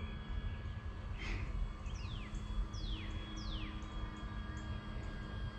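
A bird calls three times in quick succession, each call a short whistle sliding downward in pitch, after a brief chirp. Under it run a faint steady hum and a low rumble.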